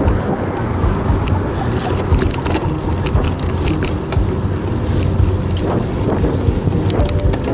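Riding noise from a road bike: wind buffeting the handlebar-mounted camera's microphone over tyre rumble on asphalt, with scattered small clicks and rattles from the bike and mount.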